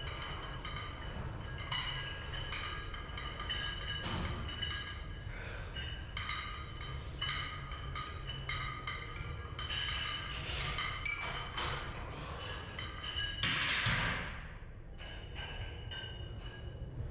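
Background music of quick, struck, bell-like mallet notes over a steady low rumble. A loud rushing noise falls in pitch about fourteen seconds in.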